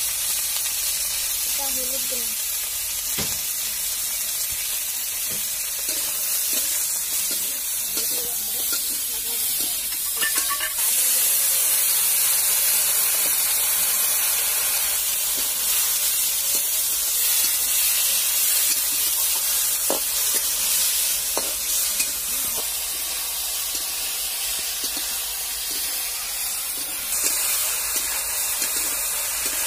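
Chicken skin and pieces sizzling in a metal kadai over a wood fire. A flat metal spatula scrapes and knocks against the pan as the food is stirred. The sizzling grows louder about eleven seconds in.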